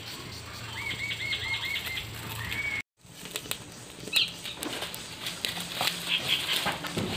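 A bird calls a quick run of about six repeated chirps followed by one rising note. After an abrupt cut, a straw-and-stick fire in a clay stove crackles with scattered sharp pops under a charring banana-leaf parcel, and a short high call comes about four seconds in.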